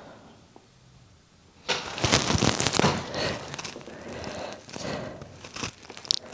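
Rustling and crinkling handling noise that starts suddenly a little under two seconds in and goes on in irregular bursts.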